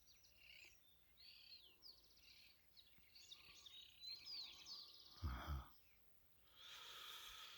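Faint birdsong: many small birds chirping and trilling in quick, overlapping calls. A brief low sound stands out about five seconds in, and a short hiss of noise comes near the end.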